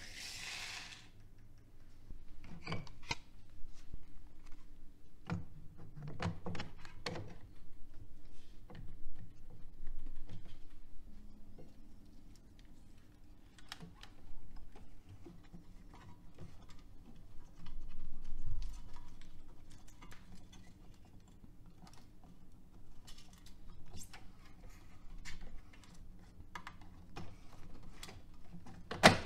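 Hands handling the plastic reels of a Sony ESP Auto Reverse reel-to-reel tape deck: scattered clicks and knocks, with a one-second rush of loose tape flapping off a spinning reel at the start. A faint steady hum sits underneath, and a sharp click comes near the end.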